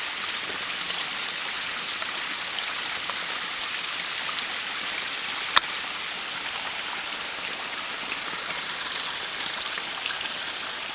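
Steady rushing of a small mountain headwater stream, with a single sharp click about halfway through.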